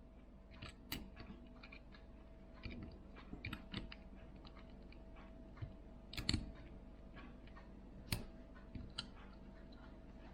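Small irregular clicks and taps of tools and tiny parts being worked against an opened smartphone during reassembly, the sharpest about six and eight seconds in, over a faint steady hum.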